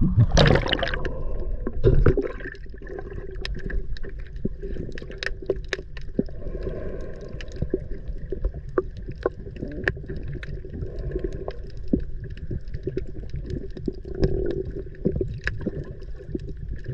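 Water lapping and gurgling against a kayak hull, with many light clicks and knocks scattered through it and a couple of louder bumps in the first two seconds.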